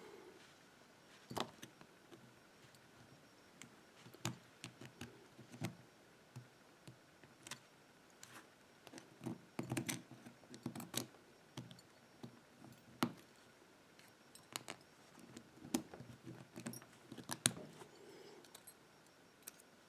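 Irregular small metallic clicks and taps from a disc padlock's lock core and a small tool being worked by hand while the retaining clip at the end of the core is pried off.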